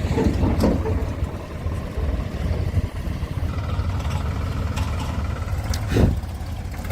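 Heavy diesel engine running steadily at low revs, with a few clunks and a louder thump about six seconds in.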